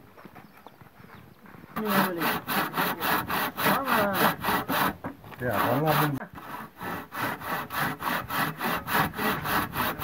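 Hand saw cutting along a wooden beam, starting about two seconds in, in quick, even strokes of about four a second.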